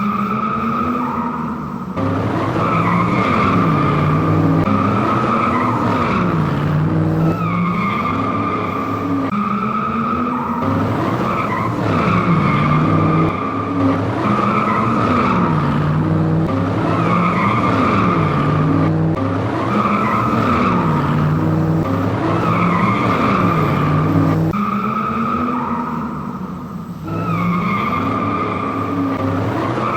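Car engine and tyre-screech sound effects for an RC drift car: the engine note revs up and down about every two seconds under a continuous tyre squeal, with a brief lull near the end.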